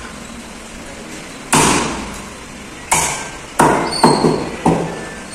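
Steel cleaver chopping through fish on a wooden chopping block: five sharp chops, the first about a second and a half in and the last four coming quickly, each with a short ring.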